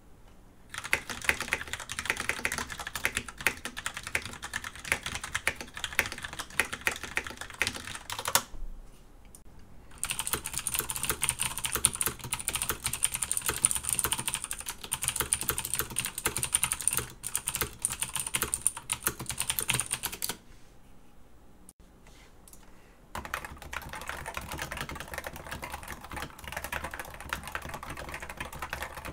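Typing on three keyboards in turn. First is a Filco Majestouch 2 with Cherry MX Brown switches and stock ABS keycaps. After a short pause comes a louder, brighter Das Keyboard Professional with clicky Cherry MX Blue switches and PBT keycaps. After a longer pause comes a quieter Topre Realforce with 45 g Topre switches and PBT keycaps.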